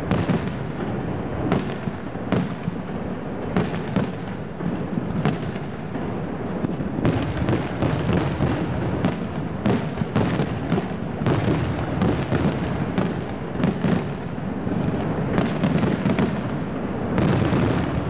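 Fireworks display: bang after bang over a steady background din, the reports coming thicker from about seven seconds in.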